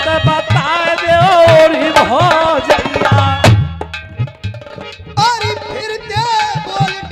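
Live Languriya folk music: a hand drum beats with bending bass strokes under a wavering melody line. The music softens for about a second just past the middle, then picks up again.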